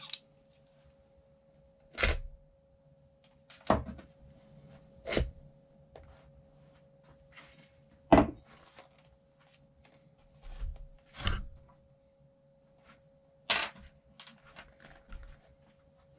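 Parts and tools of a suspension seatpost being handled during its reassembly: a string of separate knocks and clicks, about seven louder ones with softer ticks between them, over a faint steady hum.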